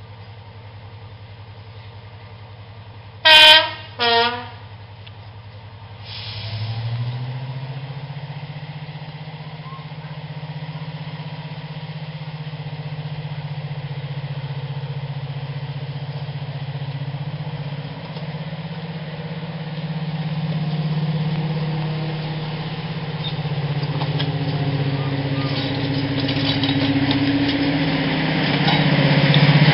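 Class 55 Deltic locomotive D9000 gives two short horn blasts, high then low, about three seconds in. Its twin Napier Deltic diesel engines then open up about six seconds in as it pulls away and comes past, the engine note building louder toward the end.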